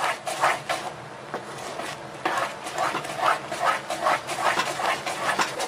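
A spatula stirring and scraping thick cashew-and-sugar kaju katli paste in a non-stick pan, in repeated squelching strokes about two or three a second, with a brief lull early on. The paste is thickening as it cooks and is beginning to gather together.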